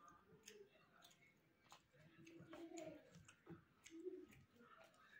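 Faint, wet clicking and smacking of a person chewing a mouthful of rice and mutton curry, many small clicks scattered throughout.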